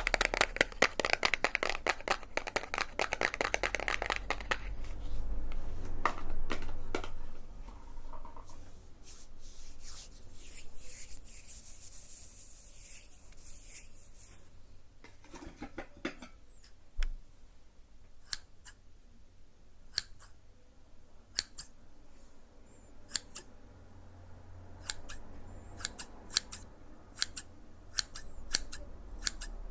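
Close-miked ASMR trigger sounds: a dense crackling rustle for the first few seconds, a short hiss around the middle, then a run of sharp, separate snipping clicks, scissors-like, through the second half.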